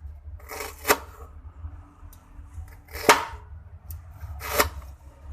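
A knife striking a cutting board in a few separate, slow chops, about three sharp knocks spaced a second or two apart, over a low steady hum.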